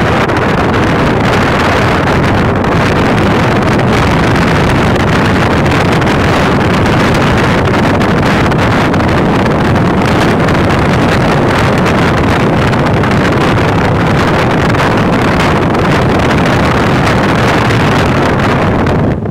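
Steady noise of a boat under way or standing by, its engine running under wind buffeting the microphone.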